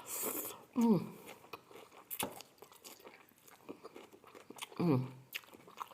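A person chewing a mouthful of ketoprak with kerupuk bawang crackers, with scattered crisp crunches. Two short voice sounds come through, one about a second in and one near the end.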